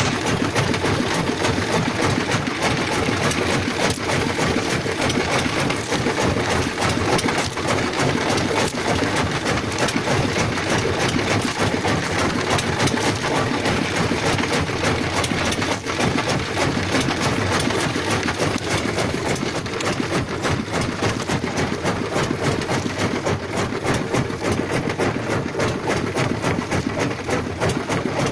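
A small boat's motor running steadily at cruising speed, a fast even chugging under the rush of water and wind.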